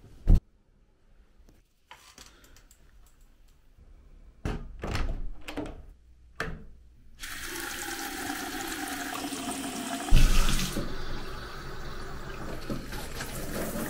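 A sharp knock, then a few seconds of rustling bedding. About seven seconds in, a shower head starts spraying and water runs steadily, with a heavy thud about ten seconds in.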